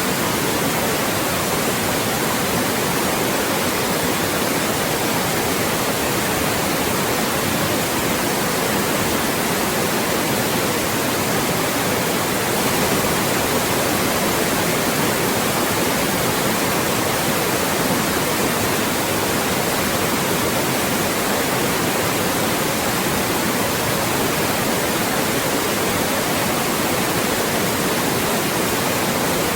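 Loud, steady synthetic white noise: an even hiss spread across all pitches, unchanging throughout, used as a speech blocker.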